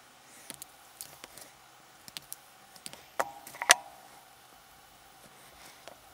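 Light scattered clicks and snips of wire strippers working on thin insulated wire, with two sharper clicks a little over three seconds in, the second ringing briefly.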